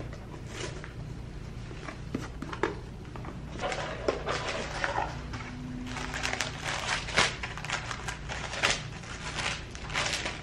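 Tissue paper rustling and crinkling as a cardboard gift box is opened and handled, with light taps and scrapes of the box; the rustling grows busier about halfway through.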